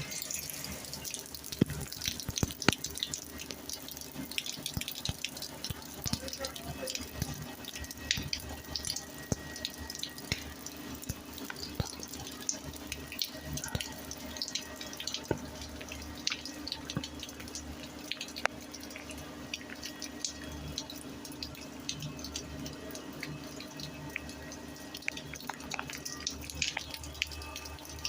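Rain falling on concrete: a steady hiss of rain with many separate drops splashing and dripping at irregular moments, and a low steady hum underneath.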